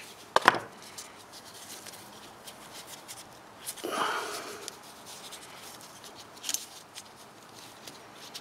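Handling noises from working on a fuel rail by hand: a sharp click of a small metal part or tool about half a second in, a short rustle near four seconds, and a lighter tap about six and a half seconds in.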